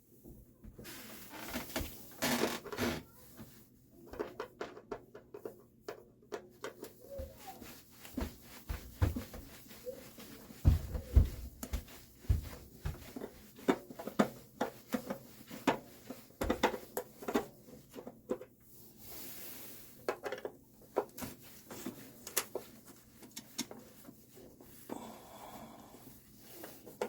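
Irregular clicks, knocks and rustling from hands handling parts and tools at the water heater, with a few heavier thumps around ten to twelve seconds in and again a few seconds later.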